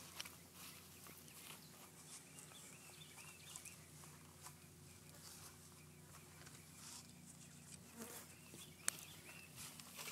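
Near silence: faint background with a few soft clicks and rustles.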